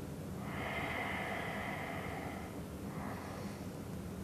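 A woman breathing audibly: one long breath starting about half a second in and lasting about two seconds, then a fainter one.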